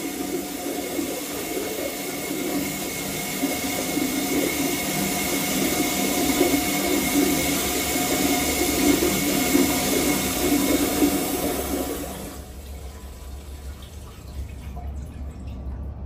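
Tankless public toilet flushing: a steady rush of water swirling through the bowl, with a faint whine in it, that cuts off about twelve seconds in, leaving a quieter low rumble.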